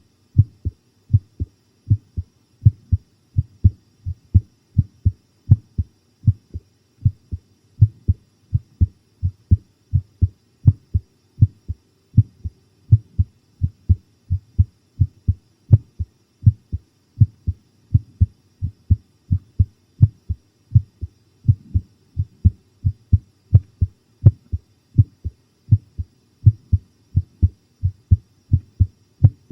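A person's heartbeat heard close up: a steady, regular lub-dub of low, dull thumps, pounding.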